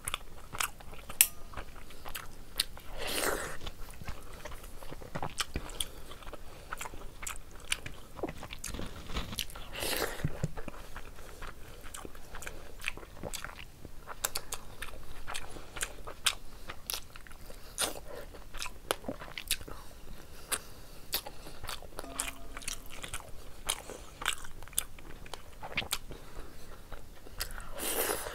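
Close-up chewing of a mouthful of rice and curry eaten by hand, with many sharp clicks from the mouth. Three longer, louder bursts come about three seconds in, around ten seconds, and near the end.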